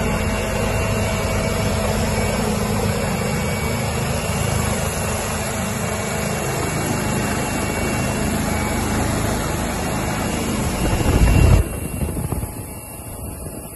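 Helicopter's turbine and rotor noise heard from inside the cabin, loud and steady. About eleven seconds in, a brief louder low rumble, then the sound drops abruptly to a quieter level.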